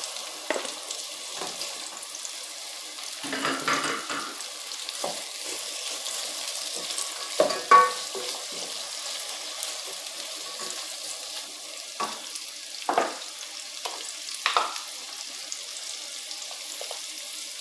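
Sliced onion and red bell pepper rings sizzling steadily in oil in an aluminium pan over low heat. A wooden spoon stirs them, knocking and scraping against the pan several times.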